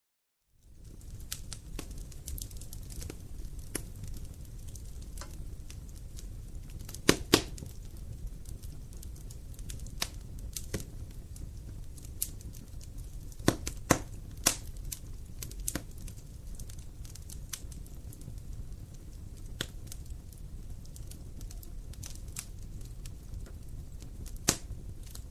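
Wood fire crackling, with irregular sharp pops and snaps over a low steady rumble of burning, a few pops much louder than the rest. It begins about half a second in, after a moment of silence.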